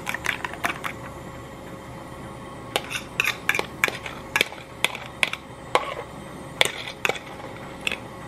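Metal fork clinking against a ceramic bowl: a quick run of beating strokes in the first second, then, after a short pause, sharp irregular taps and scrapes as raw egg mixture is scraped out of the bowl.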